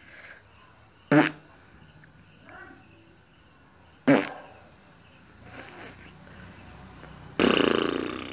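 Person making odd mouth noises: two short sharp sounds about three seconds apart, then a louder pitched sound lasting about a second near the end.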